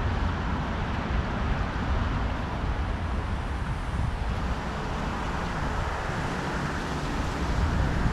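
Steady road traffic noise from nearby highway traffic, with wind rumbling on the microphone.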